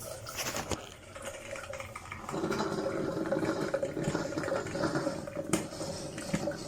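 Black+Decker CM618 single-serve coffee maker switched back on, heating and pushing water with a gurgling, rushing sound that grows louder about two seconds in. A sharp click comes near the end. The machine's on switch is faulty and keeps shutting the brew cycle off by itself.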